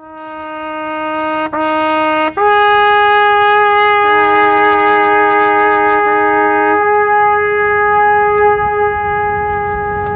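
Slow, mournful music on a trumpet-like wind instrument that fades in. Two repeated held notes are followed by a long note a fourth higher. About four seconds in, a second voice enters below and repeats the same two notes while the high note is held.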